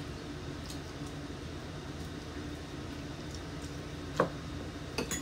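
Quiet table sounds of eating: a few light clicks and taps of forks and spoons against bowls over a steady room hum, with one sharper tap about four seconds in and two more near the end.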